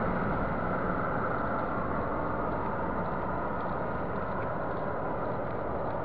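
Steady rumble of wind and road noise while riding a motorcycle.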